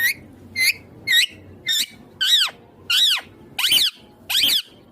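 Indian ringneck parrot (rose-ringed parakeet) calling: a run of about eight short, sharp screeches, one roughly every half second, each rising and falling in pitch.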